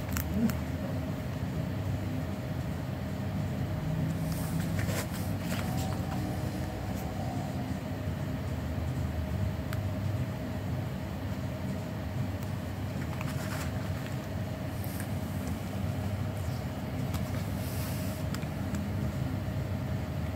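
Steady low background rumble with a faint steady hum, broken now and then by light clicks and rustles.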